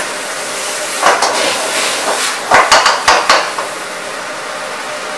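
Metal ladle scraping and clanking against a wok while stir-frying, over the steady rush of a gas wok burner; a few strikes about a second in, then a quick run of clanks from about two and a half to three and a half seconds in.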